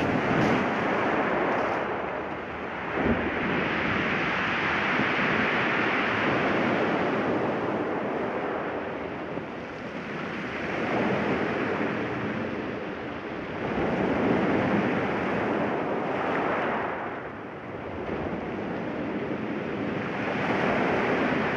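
Sea waves breaking and washing up a shingle beach, swelling and falling back every few seconds, with some wind on the microphone.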